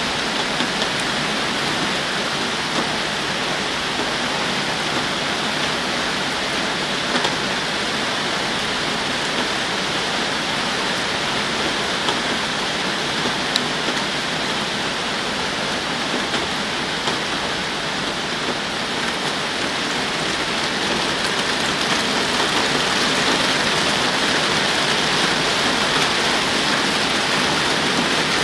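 Heavy rain shower pouring down steadily, with scattered sharper drop hits; it grows a little louder over the last third.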